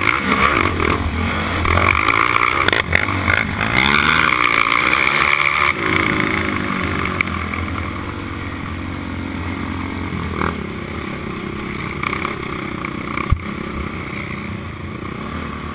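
Four-stroke racing quad's engine heard close up from the onboard camera, revving up and down hard, then running lower and steadier from about six seconds in. A single sharp knock near the end.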